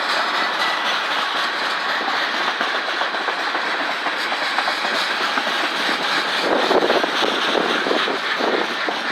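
A CSX manifest freight train rolling past close by, its steel wheels clicking and clattering over the rail joints. The clatter grows louder for a couple of seconds past the middle.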